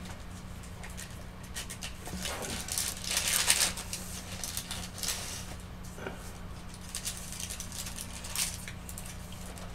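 Quiet scraping and rubbing of a wooden sculpting tool and fingers working clay, in short irregular strokes, strongest about three seconds in, over a steady low electrical hum.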